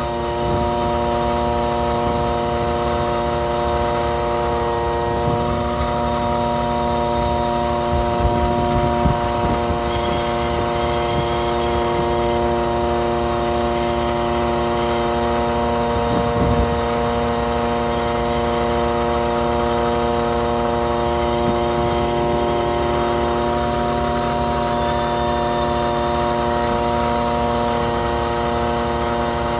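Research ship's machinery running with a steady drone made of several held tones over a low rumble, as from the vessel's engines and deck crane hydraulics. A few short knocks come about eight to nine seconds in and again near sixteen seconds.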